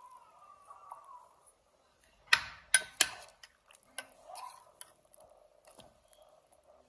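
Metal spoon clinking against a stainless steel cooking pot while meat is stirred and skimmed: three sharp clinks close together a little over two seconds in, then a few lighter taps.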